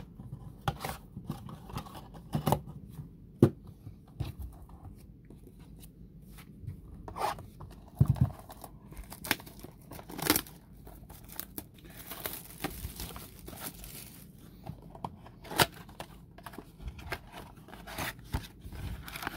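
Plastic shrink-wrap being torn off a cardboard trading-card blaster box and crinkled in the hands, with scattered sharp crackles and taps; near the end the cardboard box is pulled open.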